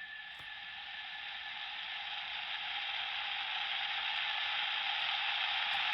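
A toy Kamen Rider Ryuki transformation belt plays its mirror-world countdown sound effect through its small speaker: a steady hissing sound with a faint held tone that grows gradually louder.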